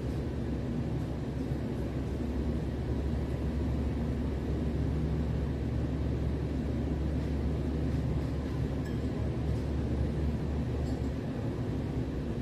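Steady low mechanical hum, with a few faint clinks near the end.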